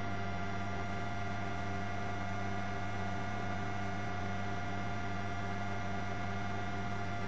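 Steady helicopter cabin drone heard through the intercom: an even hum with several constant tones, unchanging throughout.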